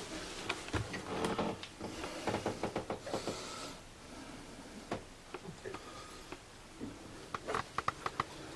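Irregular light clicks, knocks and rustles in a small room, with a brief hiss about three seconds in and a quick run of clicks near the end.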